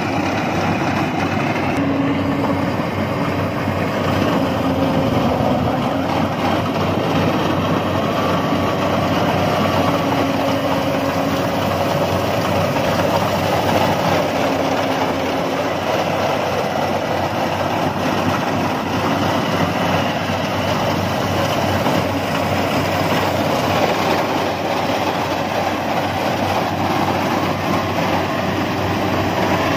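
Crawler-track rice combine harvester running steadily as it cuts standing rice: a continuous engine and machinery drone.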